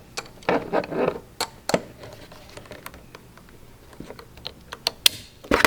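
Light clicks and taps of a socket wrench set being handled: a socket being fitted onto a ratchet extension. The clicks come irregularly, with a louder cluster near the end.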